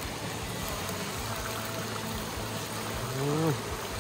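Steady rushing, hissing noise. About three seconds in, a person makes a short vocal sound that rises and then falls, the loudest moment.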